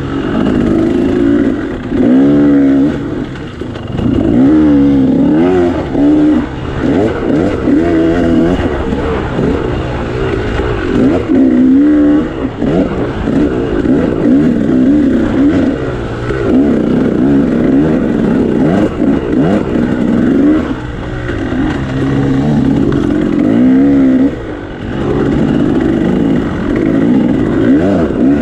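KTM 300 XC two-stroke dirt bike engine being ridden hard, revving up and falling back again and again as the throttle is worked, with brief drops in level every few seconds.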